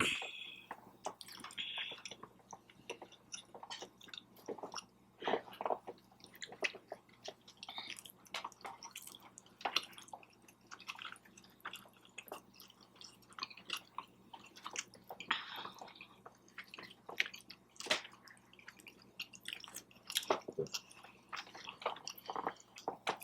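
A person chewing food up close, a string of short irregular wet mouth clicks.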